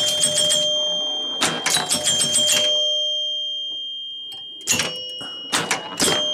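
1976 Gottlieb Target Alpha electromechanical pinball machine scoring during play. Four runs of rapid clicks from the score reels and relays each set off ringing chime tones that slowly die away.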